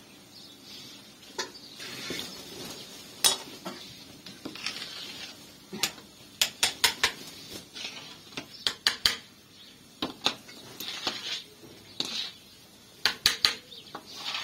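A long wooden paddle stirs thick halim in a large aluminium pot. It scrapes along the pot in swells and knocks sharply against the metal at irregular moments, several knocks coming in quick clusters.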